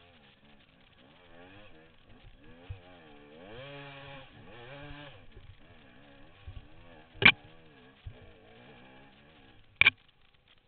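Dirt bike engine revving up and down, loudest about four seconds in, with two sharp knocks, the loudest sounds, late on, about two and a half seconds apart.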